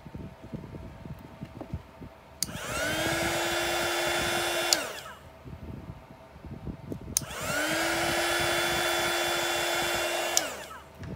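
Small handheld craft heat gun switched on twice, for about two and a half and three and a half seconds, each time with a click. Its motor whines up to a steady pitch over a blowing hiss, then winds down when it is switched off.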